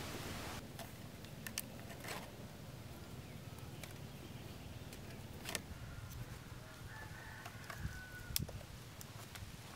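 Sparse light clicks and knocks of a bamboo hoop and wooden stakes being handled and tied with fibre cord. A bird calls faintly about seven seconds in.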